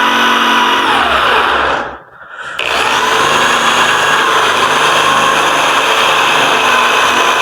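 Electric drill boring a hole in a door for a deadbolt: the motor runs steadily, winds down and stops about two seconds in, then spins back up and keeps drilling. The bit is dull.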